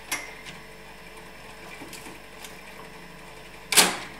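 Nikon FM10's mechanically controlled shutter firing with one sharp clack near the end, after a few light clicks from the camera being handled. The shutter still works after a day frozen at −20 °C.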